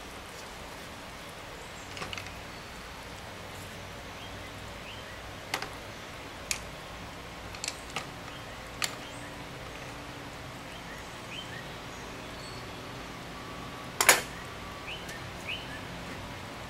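Metal pliers clicking and tapping against steel parts and a plastic tub, a few scattered sharp clicks with one louder double knock near the end. Faint short rising bird chirps over a steady background hiss.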